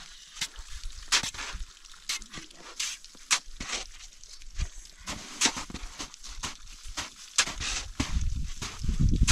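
Pick chopping into packed snow, a series of sharp, irregular crunching strikes about once a second. A low rumble rises near the end.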